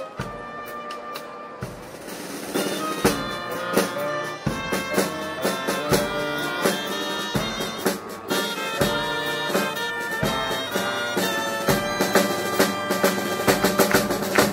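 Folk-style band music: a reedy wind melody over drums with a steady beat, the drumming growing fuller about two seconds in.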